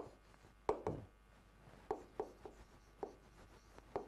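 Pen tapping and knocking against a writing board as handwritten characters are written: about seven short, sharp taps at uneven intervals, the loudest near the start.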